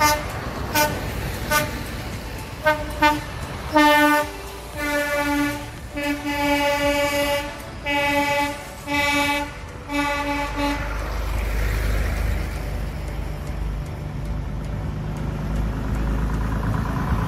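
Truck air horn sounding a run of short toots, then several longer blasts, for about the first ten seconds. After that comes the low, steady rumble of lorry diesel engines passing, growing louder near the end.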